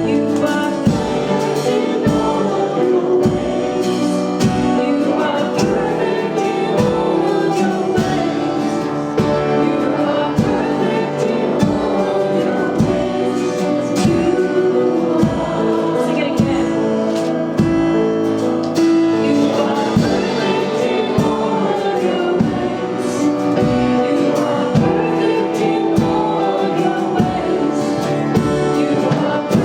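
Gospel worship song performed live: singers with choir-like vocals over a band, drums keeping a steady beat.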